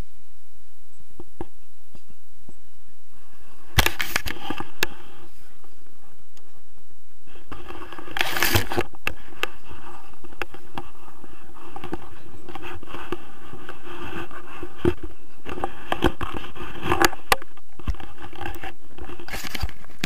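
Harness straps and clothing rubbing and scraping against a close action camera, with scattered clicks from buckles and fittings.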